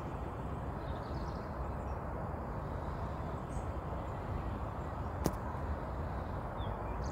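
Outdoor ambience: a steady low rumble with a few faint, brief bird chirps, and one sharp click about five seconds in.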